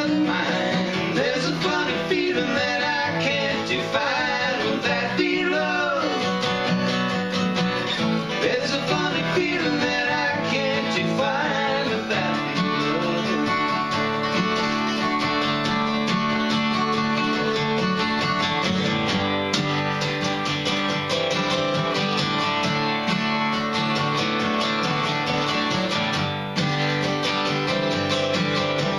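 Two acoustic guitars playing together in a country-style instrumental passage, with strummed chords throughout.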